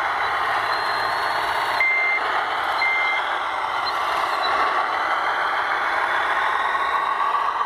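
Two short, steady reversing beeps about a second apart, typical of the backup-alarm sound of an RC construction machine, over a steady noise of working model machinery.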